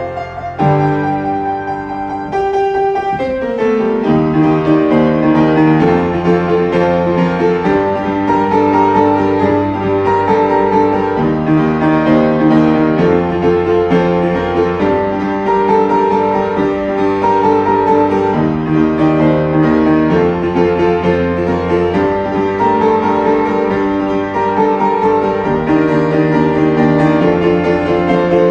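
Background piano music, notes held and changing in a steady melodic pattern.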